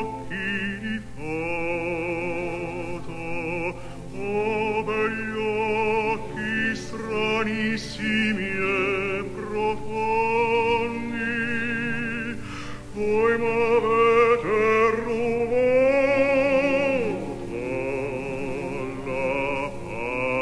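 A male operatic voice singing an Italian art song, accompanied by a string chamber orchestra. The sound is a dull, old cassette transfer with the high end cut off.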